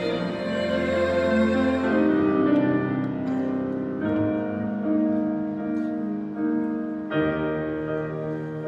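Grand piano with orchestral strings (violins and cellos) playing slow classical music, the chords changing every two or three seconds.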